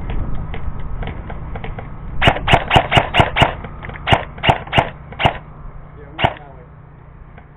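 Airsoft gun firing about eleven sharp shots: a quick run of six about two seconds in, then four more at a slower pace, and a single last shot about a second later.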